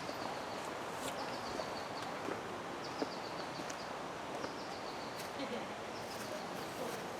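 A bird calling: short runs of quick, high chirps, each run lasting under a second and repeated every second or two, over a steady outdoor hiss.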